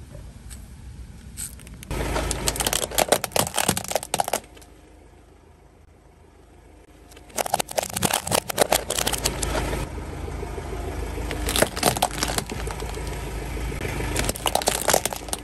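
Plastic toy vehicles cracking, snapping and crunching as a car tyre rolls over them, in four bursts of breaking plastic over the low rumble of the slowly moving car.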